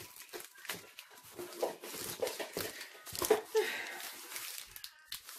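Rustling, crinkling and small knocks of cardboard and wrapped items being handled inside a parcel box as it is unpacked.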